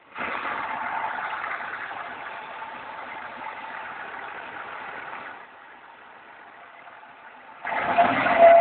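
2005 Pontiac Grand Prix GTP's supercharged 3.8-litre V6 revved twice, dropping back in between, with a steady whine riding over the engine noise while it is held up. This is the strange noise that comes only at certain RPMs after a long drive; it persists with the supercharger belt removed, so the supercharger coupler is ruled out.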